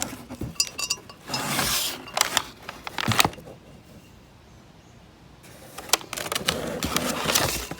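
Parts packaging being handled: crinkling rustles with sharp clicks and knocks, easing off into a quieter pause about halfway through before the rustling picks up again.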